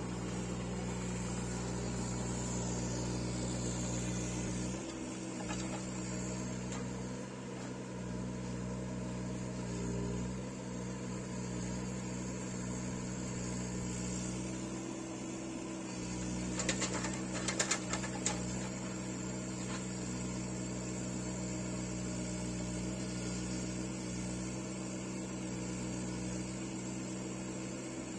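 Hitachi Zaxis 19U mini excavator's diesel engine running steadily as the machine works, the low end dipping briefly a few times. A short cluster of sharp knocks comes a little past the middle.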